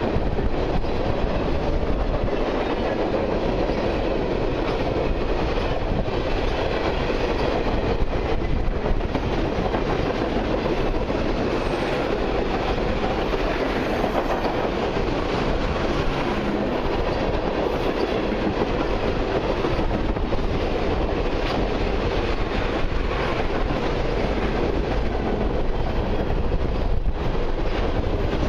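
A long freight train of mixed and autorack cars rolling past, with a steady, unbroken noise of steel wheels on rail and some clickety-clack over the joints.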